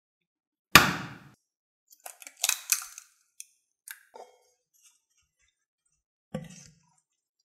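An egg cracked with one sharp knock about a second in, then crisp crackling as the shell is pulled apart. Near the end a wooden spatula knocks into a glass bowl as mixing begins.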